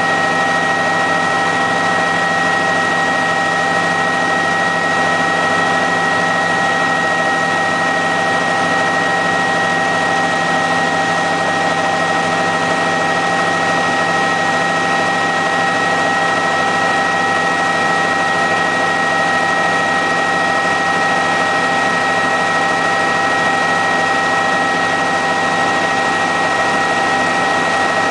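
Helicopter in flight: a steady, unchanging drone of engine and rotors with several constant whining tones on top.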